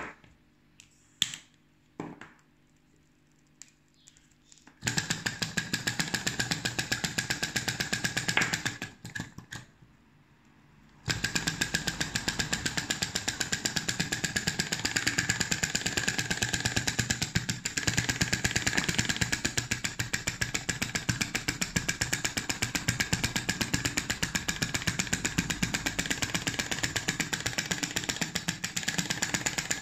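Flame-eater (vacuum) model engine running on a small spirit-lamp flame, its strokes making a rapid, even clatter. A few sharp clicks come first. It runs for about five seconds, dies away, and picks up again about eleven seconds in, then runs steadily.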